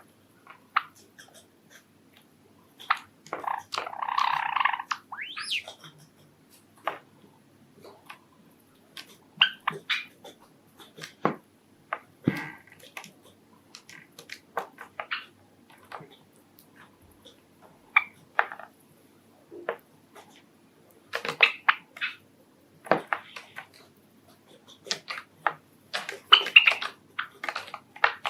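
Pet Java sparrows moving about: scattered light pecking and beak taps mixed with short chirps, and one harsher, longer call lasting over a second about four seconds in.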